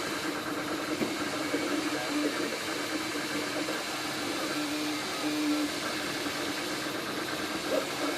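MakerBot 3D printer running a print: a steady fan hum with the stepper motors' low whine coming and going as the print head moves.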